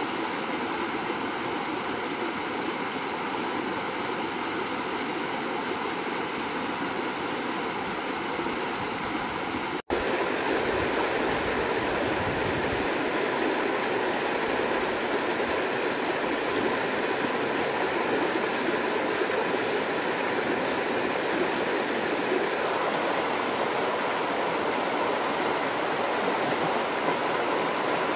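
Shallow stream rushing and splashing over rocks in a steady, dense rush of water, with a split-second break about ten seconds in, after which it is a little louder.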